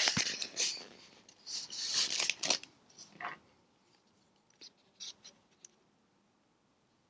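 Hands handling a white expanded-polystyrene (styrofoam) packing box: scratchy rubbing and squeaking of the foam in bursts over the first three seconds, then a few light clicks and taps.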